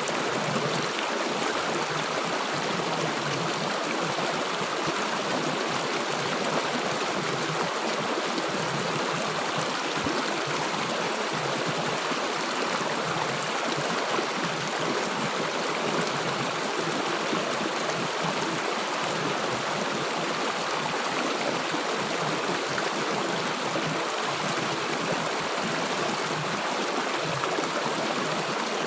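River water flowing and gurgling over rocks, a steady rushing wash.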